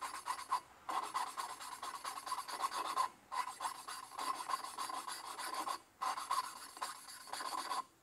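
A valve being lapped into its seat in a Robin 350cc engine's cylinder head, with valve grinding compound giving a steady gritty rasp as the valve is worked against the seat. It breaks off briefly about every three seconds. The soft, gritty sound is the compound bedding the valve face into the seat.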